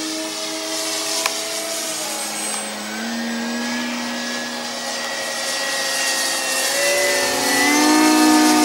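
Electric motors and propellers of several E-flite Cessna 150 foam RC planes whining together. One plane's pitch drops a couple of seconds in as it passes, and the sound grows louder near the end as two planes come closer.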